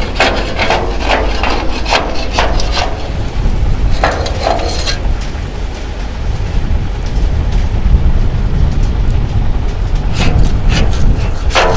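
Steel shovel scraping and knocking stuck asphalt off the raised body and tailgate of a tipped dump trailer, in bursts of quick strokes at the start, about four seconds in, and near the end. The residue has cooled and set after unloading, so it has to be chipped clear. Under it runs the steady low rumble of the truck's engine.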